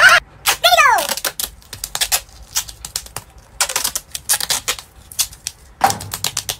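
Duct tape being pulled off the roll and pressed onto skin, in quick irregular crackling rips. It opens with a brief loud vocal sound and a cry falling in pitch within the first second.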